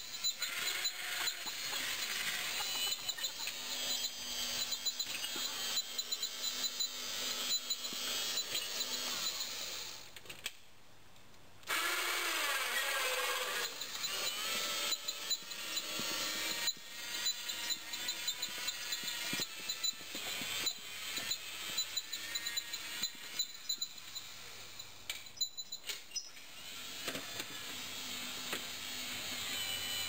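Homemade electric garden tractor's 24-volt shunt-wound DC motor whining as the tractor drives and pushes dirt with its front blade, the pitch rising and falling. The sound drops out for about a second roughly ten seconds in.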